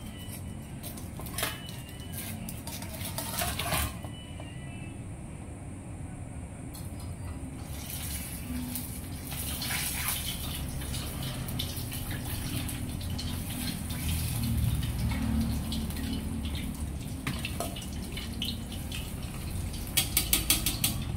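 Pork hocks going into a pot of hot oil for their second fry: the oil sizzling and bubbling, growing louder about eight seconds in. Metal tongs clink against the steel strainer and pot a few times near the start and again near the end.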